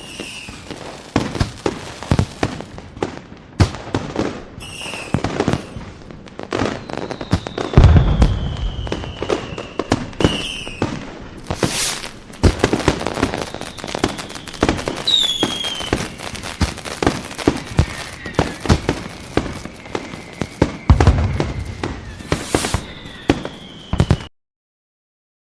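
Fireworks display: dense crackling and popping with heavy booms about 8 s and 21 s in, and a few drawn-out whistles. The sound cuts off suddenly near the end.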